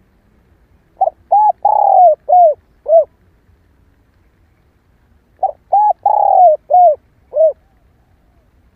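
Spotted dove, a female, cooing: two phrases of five arching coos, the third coo in each the longest, the second phrase about four seconds after the first.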